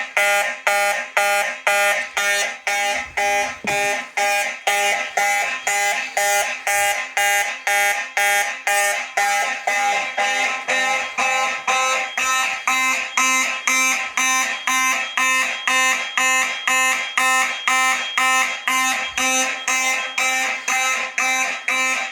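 Several fire alarm horns on a test system sounding together in march-time pattern, about two blasts a second, after a smoke detector was set off with canned test smoke.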